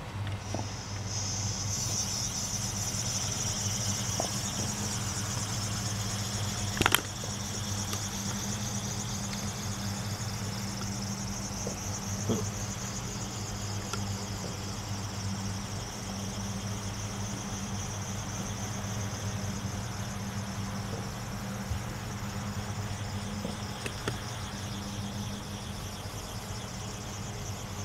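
Small homemade pentabellow compressed-air engine running on a model boat: a high hiss of escaping air that weakens as it runs, over a steady low hum, with one sharp click about seven seconds in.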